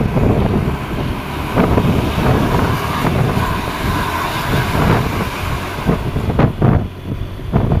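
A loud, low motor-vehicle rumble with wind buffeting the microphone, and a few sharp gusts or knocks near the end.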